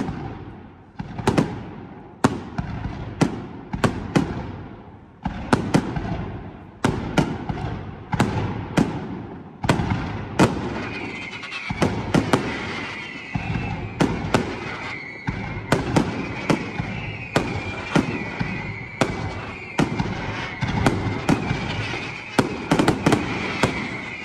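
Aerial fireworks shells bursting overhead in quick succession: sharp bangs about once a second, each trailing off in echo. From about ten seconds in, a steady high whistle runs under the bangs.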